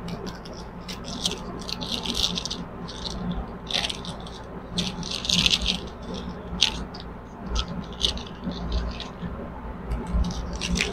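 Small paper seed envelope being pulled open and handled: crinkling and rustling in irregular bursts with scattered small clicks and rattles, over a low steady hum.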